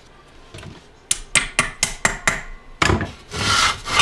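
Plastic hot tub pump parts handled on a wooden workbench: a quick run of sharp clicks and knocks, then a heavier knock and a scraping rub near the end.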